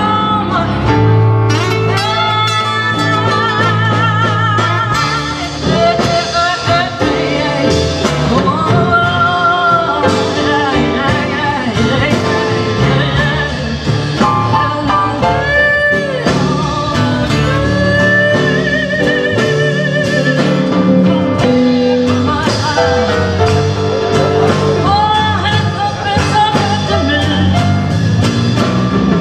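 Live blues band: a woman's voice sings held, wavering notes over acoustic guitar and electric bass.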